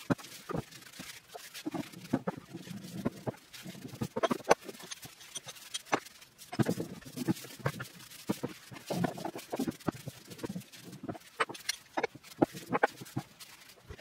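A rag rubbing boiled linseed oil onto old steel bench-vise parts, with frequent irregular knocks and clinks as the metal parts are picked up and set down on a wooden workbench.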